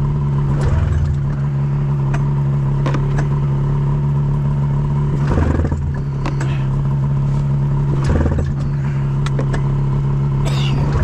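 An engine running steadily at idle, with brief clattering bursts about a second in, at about five and a half seconds and at about eight seconds.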